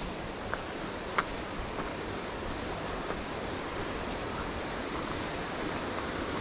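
Steady rushing of a mountain stream, with a sharp click about a second in.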